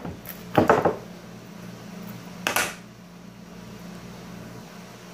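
A plastic slime container and its lid clattering on a tabletop: a short clatter about half a second in and a single knock about halfway through, over a steady low hum.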